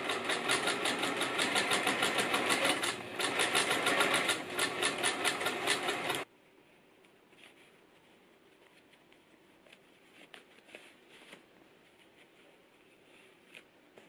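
Electric sewing machine stitching a fabric hem with rapid, even needle strokes. It dips briefly about three seconds in and cuts off suddenly about six seconds in. After that only faint rustles and small taps of fabric and elastic being handled remain.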